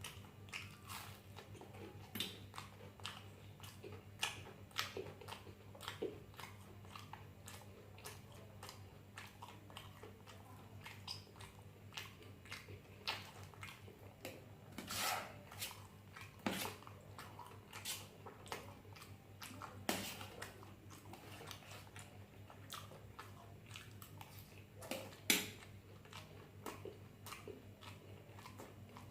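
A person chewing and biting food close to the microphone: scattered wet mouth clicks and smacks, with a few louder bites.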